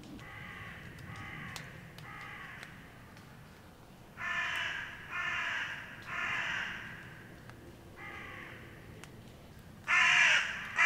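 A crow cawing repeatedly: three faint caws, then three louder ones about four seconds in, another faint one, and a louder caw near the end.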